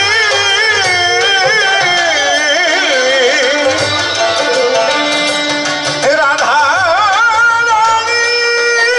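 A man singing a kobi gan line, long drawn-out notes with heavy vibrato sliding downward, over instrumental accompaniment; a second phrase begins about two-thirds of the way in.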